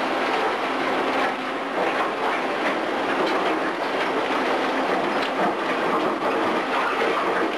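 Liebherr crawler excavator working a pile of demolition rubble: a steady engine drone under continuous clattering and knocking of broken masonry and debris as the bucket digs and drags through it.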